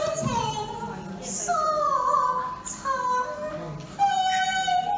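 Cantonese opera singing: a performer's voice sliding through a sung line in the opera's ornamented style, with a long steady held note beginning about four seconds in.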